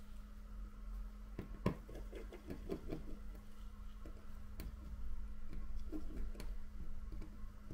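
Scattered light clicks and taps of small repair tools on an iPhone's internals while the rear camera bracket is being taken out, over a steady low hum.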